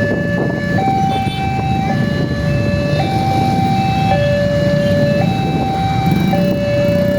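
Railway level-crossing alarm siren sounding a two-tone hi-lo signal, switching between a lower and a higher tone about once a second, the warning that a train is coming and the crossing gate is closing. Road traffic runs underneath.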